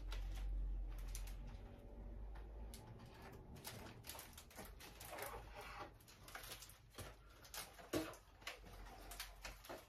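Faint crinkling, rustling and tapping of foil letter balloons being handled and hung on a wall, with a low rumble over the first few seconds.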